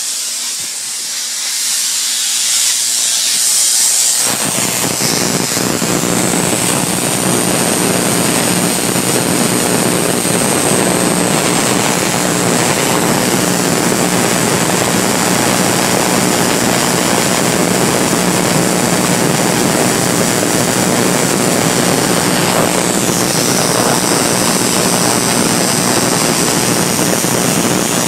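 Homemade high-voltage corona motor running: a loud, steady hiss of corona discharge with a low buzz underneath. It fills out about four seconds in and then holds steady.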